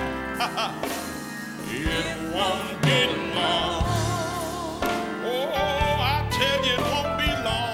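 Gospel choir singing with vibrato over instrumental accompaniment.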